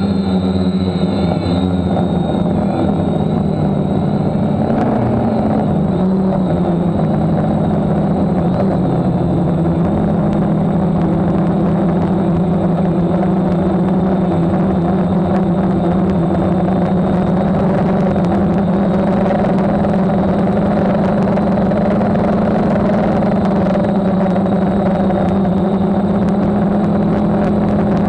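DJI F550 hexacopter's brushless motors and propellers running, heard close up from a camera on the frame: a loud, steady hum. Its pitch wavers up and down in the first ten seconds or so, then holds steady.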